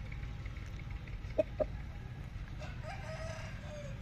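Chicken clucking: two short, sharp clucks about a second and a half in, then a longer drawn-out call near the end, over a steady low rumble.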